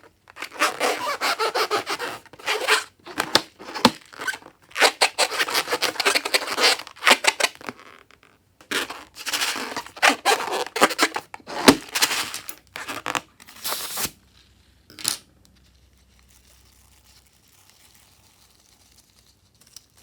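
Crackling, tearing handling sounds of slime-making: a run of dense, crinkly bursts of noise for most of the first fourteen seconds, one more short burst, then only faint sound near the end.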